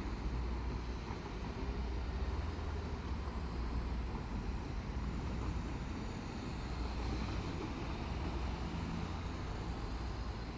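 Diesel railcar running with a steady low rumble.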